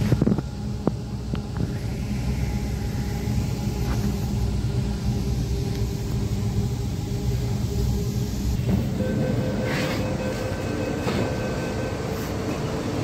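Namma Metro train running, heard from inside the passenger car: a steady low rumble of wheels on track, with a few clicks near the start. About nine seconds in, a steady whine of several pitches joins as the train comes into a station.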